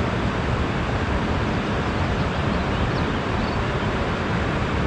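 Steady rushing noise of a nearby waterfall, an even roar with no rises or breaks.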